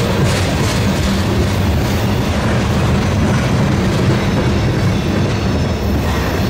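A train passing close by: a loud, steady rumble of wheels rolling on the rails.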